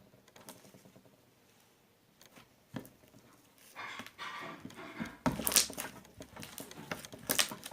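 Slime being squeezed and stretched by hand. It is quiet at first, then from about three seconds in come soft squelches and a few sharp sticky pops and crackles.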